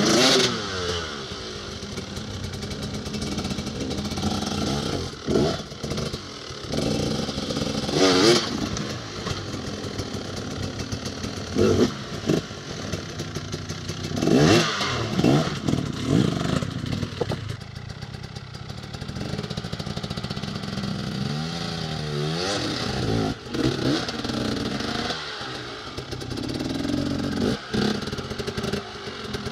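KTM enduro motorcycle engines revving in short, repeated bursts, rising and falling in pitch, as the bikes are ridden slowly up a rocky gully. Clatter from the bikes and tyres striking rocks comes between the bursts.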